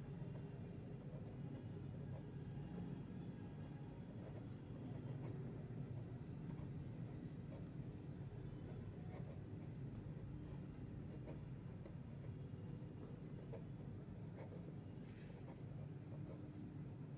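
Pen scratching on notebook paper as handwriting is written in short strokes, over a steady low background hum.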